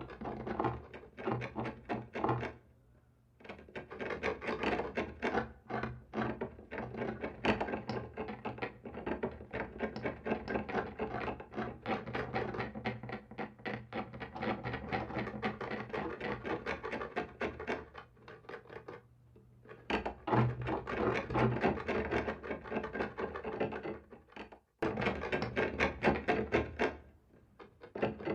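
Scratching on a wall: rapid rasping, rubbing strokes in long runs with a few short pauses, over a faint steady low hum.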